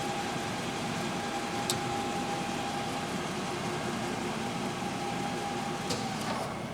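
1981 LeBlond Regal engine lathe running at 256 RPM with the cross slide under power feed: a steady mechanical hum of the spindle and gear train with a faint steady whine that stops near the end. A sharp click sounds about a second and a half in and another near the end.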